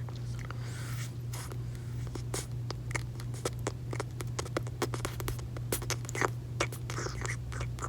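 Close-miked mouth sounds of gum chewing: quick, irregular wet clicks and smacks that come thickest in the middle stretch, over a steady low hum.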